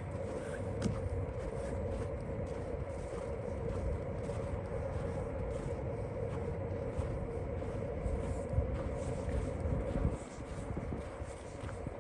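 A steady engine drone with a low rumble, running until about ten seconds in and then fading away.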